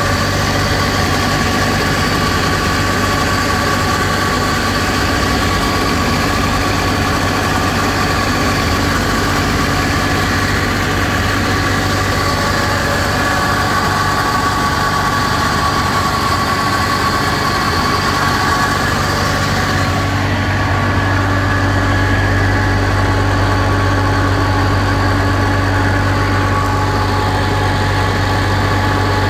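Diesel engine of a Thermo King trailer refrigeration unit running steadily with its engine compartment open. About two-thirds of the way through the low hum grows stronger and the sound turns deeper.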